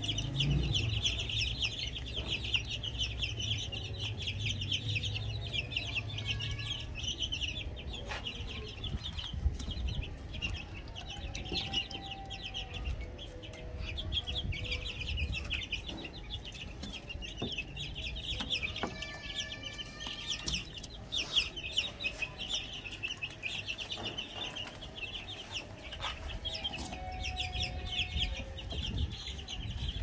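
A flock of Plymouth Rock chicks peeping continuously in rapid, high chirps.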